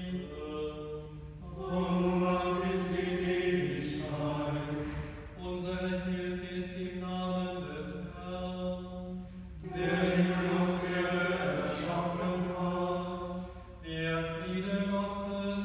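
Male voices chanting a liturgical melody, held notes sung in phrases of a few seconds with short breaks for breath between them.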